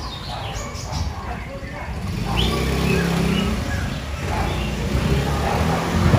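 Indistinct voices over the low, steady rumble of a running vehicle engine.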